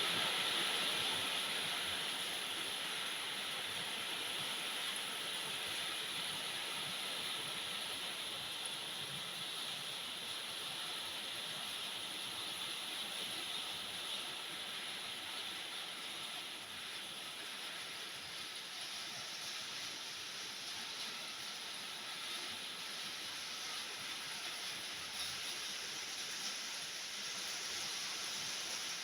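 Heavy tropical downpour: a dense, steady hiss of rain, a little louder in the first couple of seconds.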